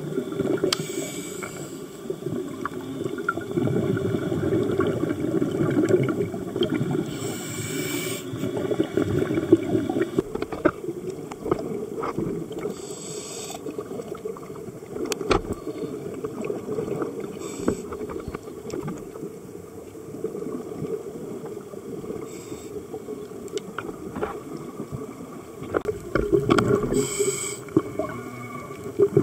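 Scuba diver breathing through a regulator underwater: short hisses about every five seconds over a steady gurgling rumble of exhaled bubbles.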